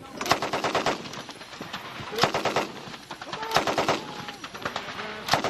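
M60 7.62 mm machine gun firing short bursts of several rounds each: three bursts about a second apart, with a fourth starting near the end.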